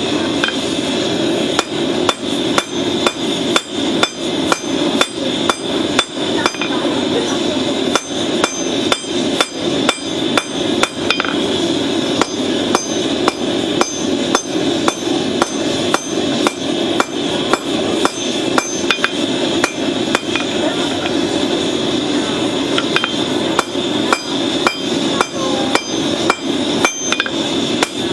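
Hand hammer blows on red-hot rasp steel on an anvil, forging it into a blade: quick regular strikes, about two to three a second with brief pauses, each with a short metallic ring. A steady rushing noise runs underneath.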